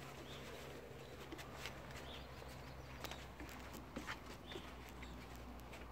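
Irish Wolfhound puppy's claws and paws tapping faintly and irregularly on wooden deck boards as it walks.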